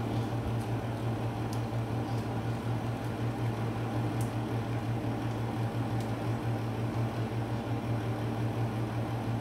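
A steady low hum with a fan-like hiss, as of a motor or fan running, with a few faint light clicks on top.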